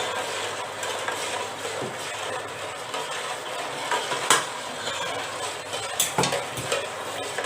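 Jaggery syrup being stirred in a pan with a spoon, the spoon scraping and clicking against the pan over a steady hiss of the hot, boiling syrup. A few sharp knocks of the spoon on the pan, the loudest about four seconds in and two more around six seconds.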